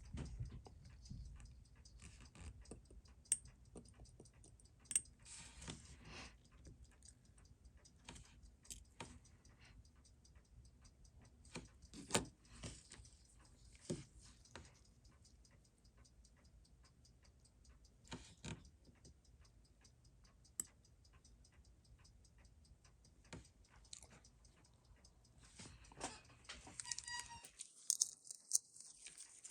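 Faint, irregular clicks and small metallic taps of watchmaker's tools against tiny watch-movement parts during disassembly, a few seconds apart, growing busier near the end, over a low steady hum.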